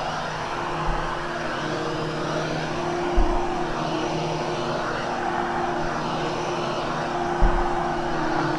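Hoover HushTone upright vacuum running on carpet, pushed back and forth: a steady motor hum, with the airflow noise swelling and fading with each stroke. A low thump comes about one second in, another just after three seconds, and another near the end.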